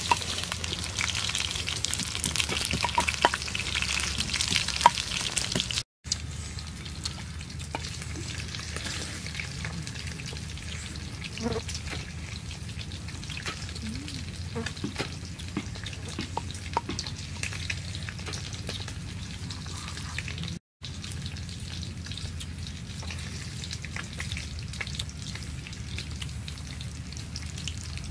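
Catfish frying in hot oil in a wok over a wood fire: a steady sizzle full of fine crackles and spits, louder and hissier for the first six seconds or so.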